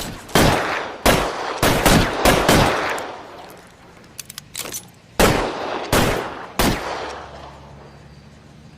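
Shots from a .38 Detective Special revolver: a quick string of about five shots, a few light clicks a little before the middle, then three more shots, each shot trailing off in a decaying echo.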